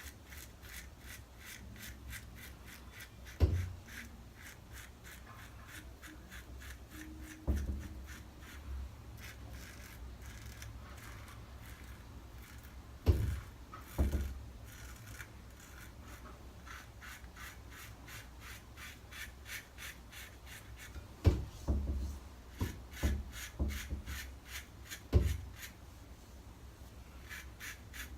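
Single-edge safety razor (Wickham 1912 Gem Clog Pruf) scraping through lathered stubble in quick, repeated short strokes. A few dull thumps stand out among the strokes.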